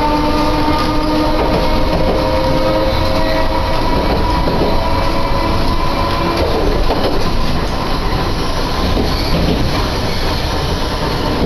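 Iyotetsu streetcar running, heard from inside the car: a steady rumble of wheels on rail, with a steady whine that fades out about six seconds in.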